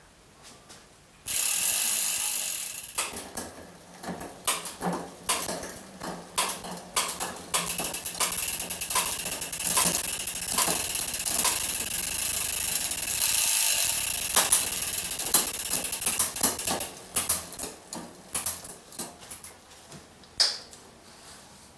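Mountain bike drivetrain turned by hand on a work stand: the chain runs over the cassette and rear derailleur while the rear hub's freehub buzzes with fast ratchet clicks, working in freshly applied chain lube. The sound starts suddenly about a second in, and near the end it thins to scattered ticks.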